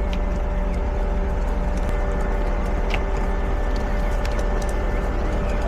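Steady low rumble with a constant electrical hum inside a passenger train carriage, with a few faint clicks.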